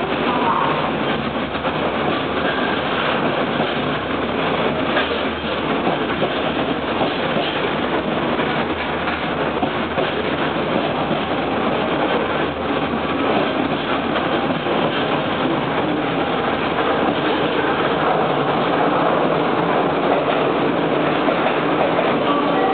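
Freight train container wagons rolling past close by: a steady noise of steel wheels running on the rails, with no break.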